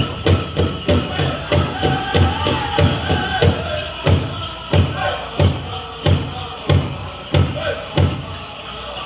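Powwow drum group playing a chicken dance song: a big drum struck in a steady beat of about three a second, with voices singing over it. From about four seconds in the beat slows to about one and a half strokes a second, and the drumming stops near the end.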